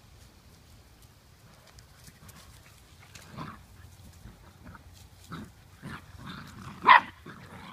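Two Blue Lacy puppies play-fighting, making short growls and grunts from about three seconds in, with one much louder short cry near the end.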